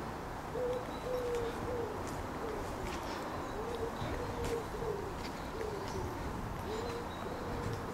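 A pigeon cooing: short, low, soft notes repeated in phrases, some falling away at the end.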